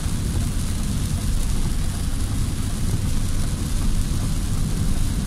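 Car driving through heavy rain, heard from inside the cabin: a steady low rumble of engine and road noise with the hiss of rain and wet tyres.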